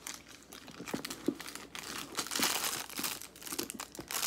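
Clear plastic packaging wrap crinkling and rustling in irregular bursts as a handbag is handled, loudest around the middle.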